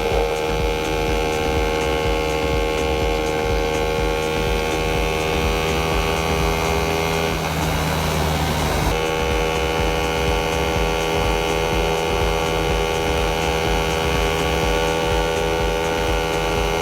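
Honda Z50A minibike's four-stroke single-cylinder engine, bored out to 88cc, running at a steady speed. Its note breaks up briefly about halfway through, then settles back to the same pitch.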